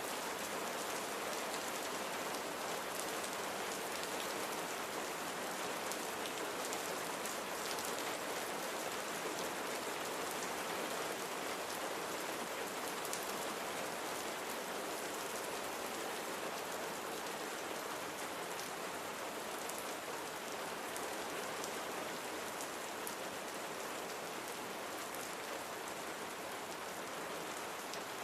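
Steady rain falling, a continuous even hiss with many fine drop ticks.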